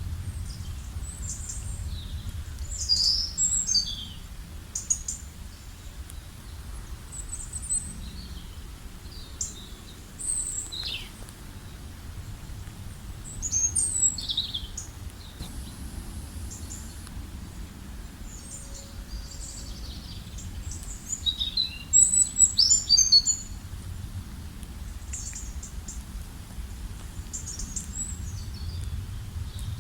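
Several songbirds chirping and trilling in short, scattered phrases, busiest about three seconds in, around the middle and about two-thirds through, over a steady low rumble.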